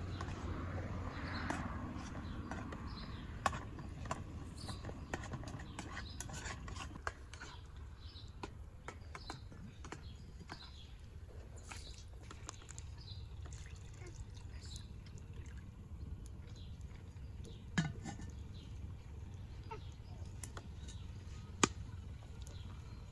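Small birds chirping in the background of an outdoor cooking scene, with occasional clinks and knocks of pots and cooking utensils, the two sharpest coming late. A low steady rumble lies underneath.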